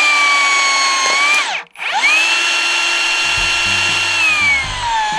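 HiKOKI VB3616DA 36V cordless rebar cut-bender's electric motor cutting 13 mm rebar: a loud, steady, high whine that stops briefly about one and a half seconds in, then starts again, sinks in pitch near the end and cuts off.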